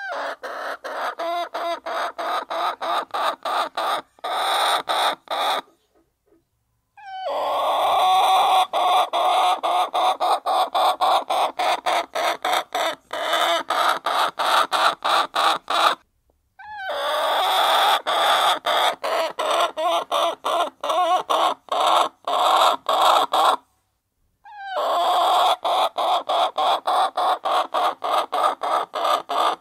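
A flock of hens clucking and murmuring together while feeding, a dense chorus of overlapping calls. The sound is chopped by many short silences a few times a second and breaks off fully for about a second three times.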